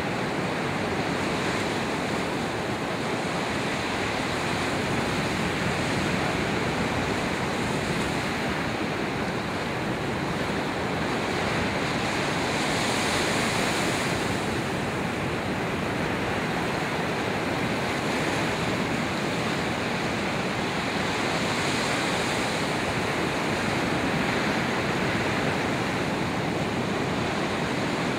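Ocean surf: a steady rush of small waves breaking and washing in, swelling a little as individual waves break.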